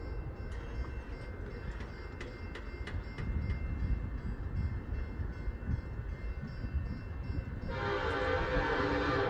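Grade-crossing bell ringing in regular strokes over a low rumble; about eight seconds in, a diesel locomotive's air horn starts a long blast.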